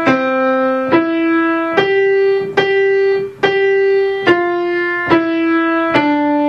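Acoustic piano, right hand alone, playing a simple beginner's melody slowly and legato: single notes one at a time, about one a second, in the middle of the keyboard around middle C.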